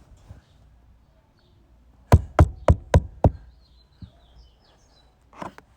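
Five quick, loud knocks in a row, about four a second, an unexplained knocking heard from inside the car.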